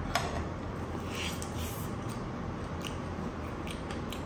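A person biting into and chewing a crispy spinach-coated chicken drumstick: one sharp crunch just after the start, then a few faint crackles of chewing over a low steady hum.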